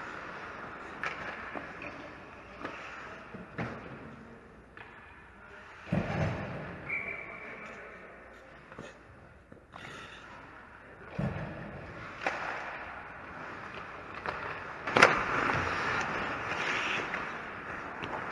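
Ice hockey rink play heard from the goal: skate blades scraping and carving the ice, with sharp knocks of sticks and puck, the loudest about three-quarters of the way through. A short high squeak comes about seven seconds in.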